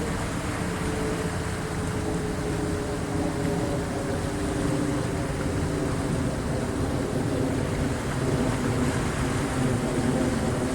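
Seawater washing in at high tide, a steady rushing noise, with a mechanical drone whose pitch drifts slowly underneath it.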